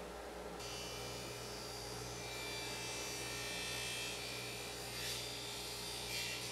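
Table saw running with a steady whine as a crosscut sled is pushed through a piece of wood, with two short bursts of cutting noise near the end.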